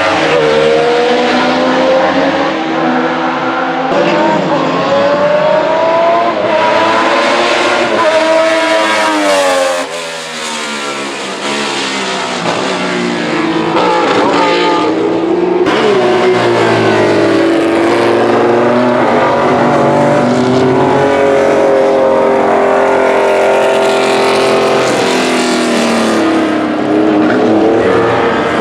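Alfa Romeo 33 SP 12's flat-12 racing engine at full song, pitch climbing through the gears with short steps at each upshift. About ten seconds in it drops sharply off the throttle, then pulls hard again through a long rise.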